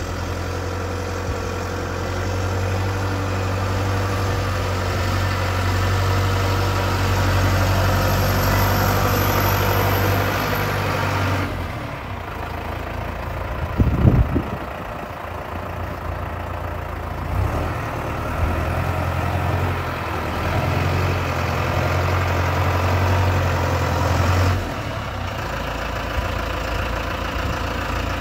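Valtra M120 tractor's diesel engine running steadily, its sound rising and falling twice: louder for the first eleven seconds or so, dropping back to idle, then louder again for about six seconds before settling back. There is a short loud thump about halfway through.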